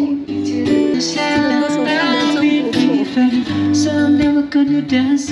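Strummed acoustic guitar with a voice singing along, playing as live music.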